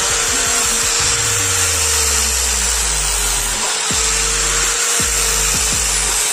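Angle grinder with a sanding disc running against a bearing-steel knife blade: a steady motor whine over a hissing grind as the disc sands the steel.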